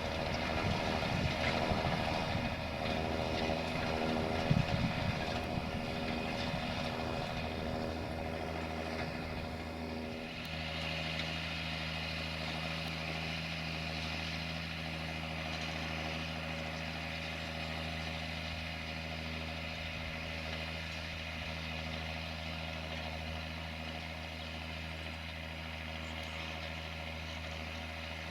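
John Deere 6520 tractor engine running steadily at working revs, with gusty wind on the microphone in the first few seconds. About ten seconds in, the engine note settles into a lower, even hum.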